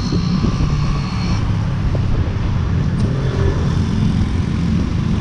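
Motorcycle engine running steadily while under way, with road and traffic noise.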